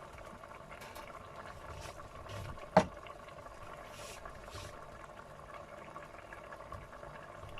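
Pork caldereta stew simmering in a pot with a steady bubbling, and one sharp knock of a utensil or lid on the pot just under three seconds in.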